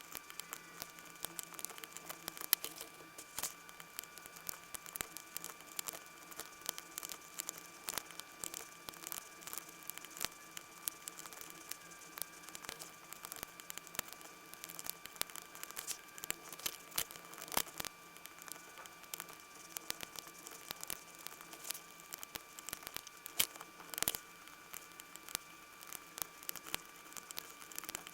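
Lock picks working inside an Assa Twin 6000 lock cylinder: irregular small metallic clicks and light scraping as the pins are set, over a faint steady whine.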